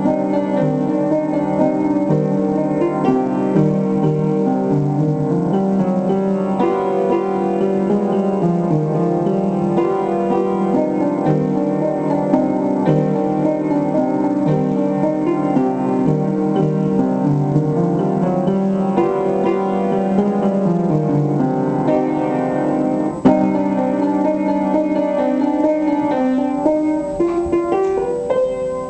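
Piano playing a short piece, with held notes over a moving lower line, and one sharp click about 23 seconds in.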